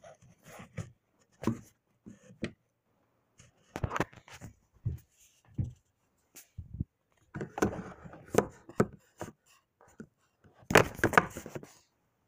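Irregular knocks, taps and rustles of a phone being handled close to its microphone, with the loudest cluster near the end.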